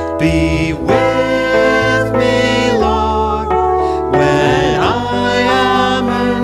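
Church organ playing held chords, with a singing voice wavering over them in a slow sacred setting.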